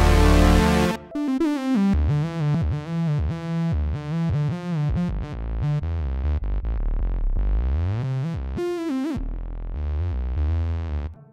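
Ensoniq SQ-80 digital-waveform synthesizer playing: a thick held sound stops about a second in, then a sequence of short notes with sliding pitches over a pulsing low bass line, with one long upward pitch sweep near the end.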